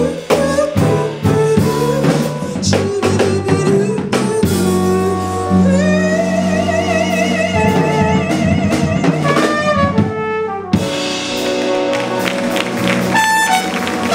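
Jazz band playing an instrumental passage: drum kit and bass under a horn that holds long notes with a wavering vibrato. The music breaks off briefly near the end and picks up again.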